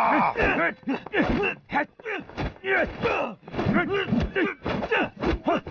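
Fight-scene sounds: a rapid run of short grunts and cries of exertion from the fighters, mixed with quick thuds and whacks of blows landing.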